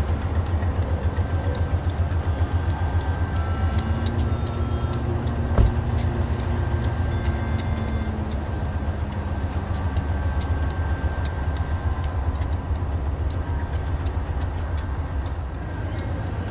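Diesel-electric freight locomotives running: a steady low engine rumble with faint whining tones above it. A single sharp knock sounds about five and a half seconds in.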